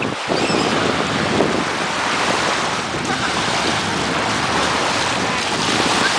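Sea surf washing onto the shore, a steady rushing noise, with wind buffeting the microphone.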